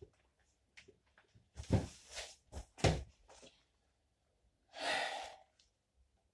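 Clothing rustling and being handled as layers are taken off, with a few sharp rustles between about one and a half and three and a half seconds in. About five seconds in comes one breathy exhale, like a sigh.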